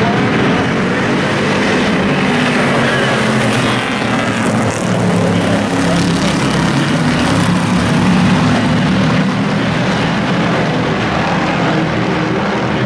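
A pack of hobby-class pickup race trucks running around an oval track, their engines blending into loud, steady engine noise that swells and fades a little as they pass.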